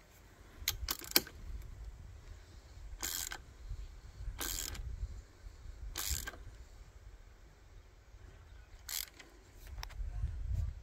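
Ratchet wrench clicking in four short strokes a second or more apart, tightening a threaded fitting on an Evinrude outboard. A few sharp metal clicks come about a second in.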